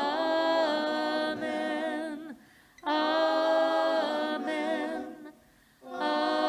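A small mixed group of men and women singing long held chords without accompaniment, broken twice by short pauses for breath.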